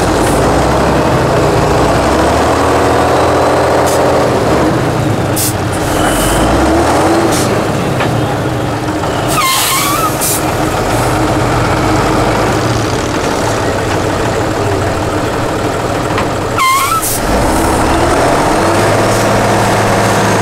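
Tatra 8x8 trial truck's diesel engine revving hard under load as it works through a mud pit, its pitch rising and falling repeatedly. Twice, about halfway through and again near the end, a short sharp hiss of released air cuts through the engine.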